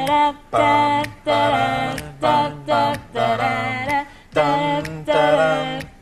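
A song's intro sung a cappella, with no instruments, as wordless vocal phrases in a steady rhythm. Short sung notes repeat roughly every half second, with brief gaps between the groups.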